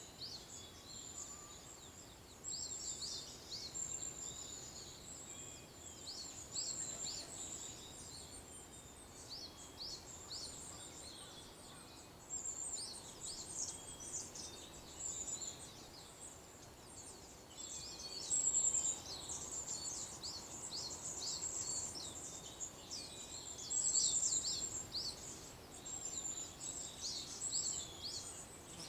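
Many small songbirds chirping busily in a dawn chorus: rapid, high, overlapping chirps with no pause, swelling louder a few times in the second half.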